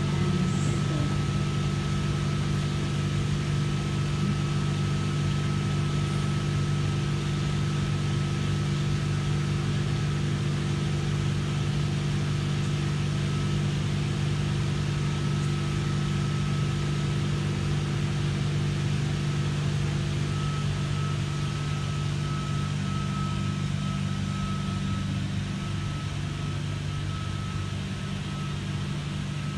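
Steady hum from a stationary V-set double-deck electric train standing at the platform: a low drone with a thin high tone above it, holding level and easing slightly near the end.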